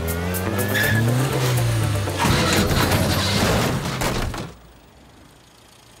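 Cartoon sound effects of Mr. Bean's Mini, its engine revving with rising pitch. Then a dense stretch of scraping and crunching as it shoves the parked cars together bumper to bumper. The noise stops abruptly about four and a half seconds in.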